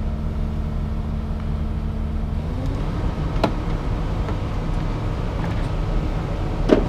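Engine of a scrap-yard magnet crane running steadily, then rising in pitch about two and a half seconds in as the machine works the magnet down. Two sharp metal clanks, one midway and one near the end.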